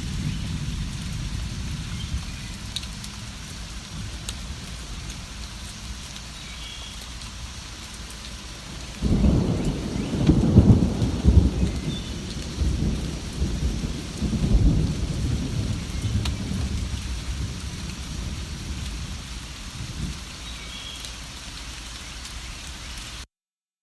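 Steady rainfall with a roll of thunder that breaks in suddenly about nine seconds in and rumbles on for several seconds before fading back into the rain. A few faint bird chirps sound over the rain, and the sound cuts off abruptly to silence near the end.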